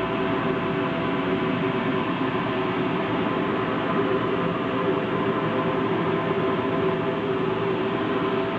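Steady machine hum: an even rumbling noise with a few constant tones held underneath, unchanging, typical of workshop machinery such as a running high-frequency plastic welding machine.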